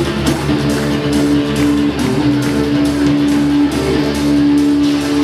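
Live electrofolk band music: guitar playing over a long held melody note, a steady bass line and an even beat.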